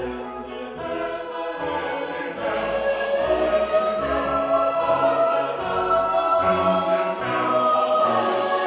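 Background choral music: voices singing long held notes.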